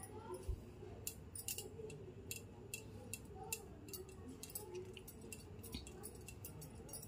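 Bangles on a woman's wrists clinking lightly against each other as her hands roll cotton into a wick: many small, irregular clinks.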